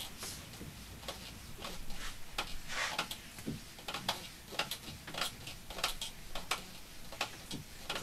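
Eraser wiping a whiteboard clean in a run of short scrubbing strokes, about two or three a second.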